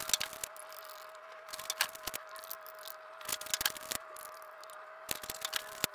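Scattered light clicks and rattles from handling a long plastic funnel and fluid bottles while topping up the transmission, over a faint steady high hum.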